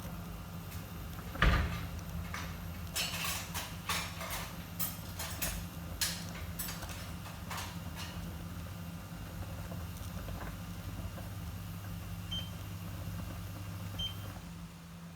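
Kitchen handling sounds: a sharp knock about a second and a half in, then a string of light clicks and taps over the next few seconds, over a steady electrical hum that cuts off near the end.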